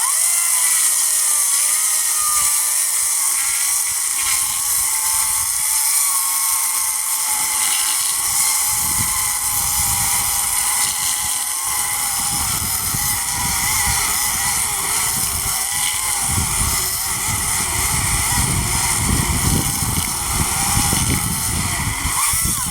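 Chainsaw running at full throttle, cutting through a log; a steady high whine whose pitch wavers a little under load.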